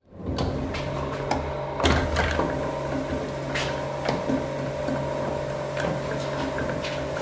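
Letterpress printing press running: a steady motor hum with scattered clicks and knocks from the mechanism, fading in at the start.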